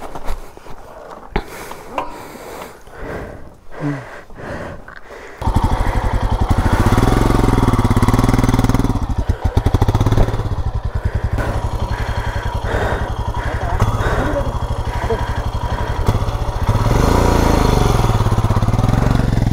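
Royal Enfield Himalayan's single-cylinder engine, coming in suddenly about five seconds in after a few knocks and clicks from the motorcycle being handled, then running loud and low with two revs as the bike is worked up a muddy slope.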